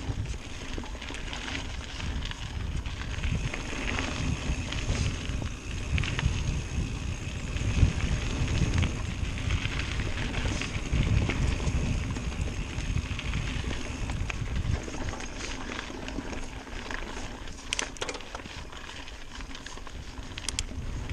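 Mountain bike rolling along a dirt singletrack trail: a steady low rumble of the ride, with sharp rattles and knocks now and then, a few close together near the end.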